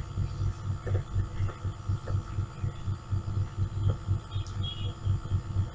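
A low hum that pulses several times a second, with no speech over it.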